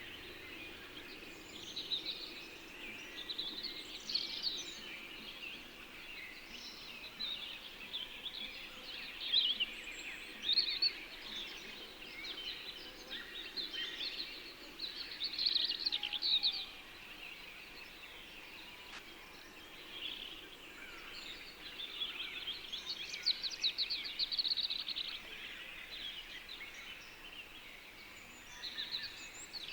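Several songbirds chirping and singing, with overlapping calls and fast trills that come and go, over a faint steady background hiss.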